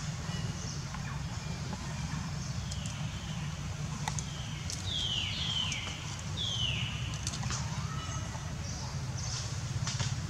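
Outdoor ambience: a steady low hum, with short high calls sliding downward, one about three seconds in and three close together around the middle, and a few faint clicks.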